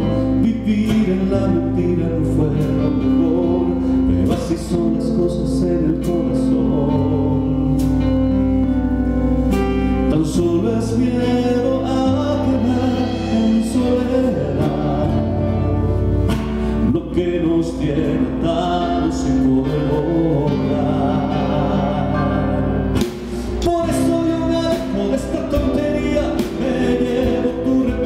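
A male singer sings a Spanish-language ballad live with a band of guitar, piano and bass, played through a PA in a sound check. It plays on steadily, with a brief dip about 23 seconds in.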